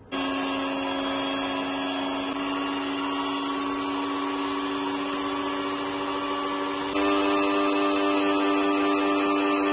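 Electric hand mixer running steadily with its beaters in a bowl, whipping cream with cocoa powder, sugar and chocolate syrup. About seven seconds in its hum steps up, a little louder and higher in pitch.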